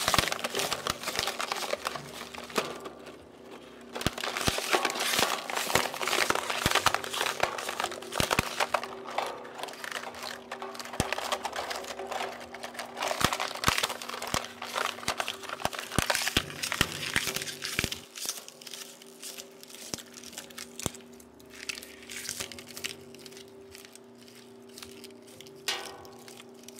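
Homemade gear-driven plastic shredder chewing up a plastic water bottle: dense crunching, crinkling and sharp cracks of the plastic over a steady drive hum. The crackling thins out about two-thirds of the way through as the bottle is swallowed, leaving the hum and occasional crunches.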